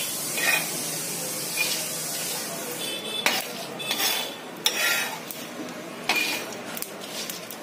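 Metal spatula stirring whole coriander seeds, cumin seeds and dried red chillies as they dry-roast in a black pan with no oil: a steady hiss at first, then several sharp scrapes and clicks of the spatula against the pan from about three seconds in.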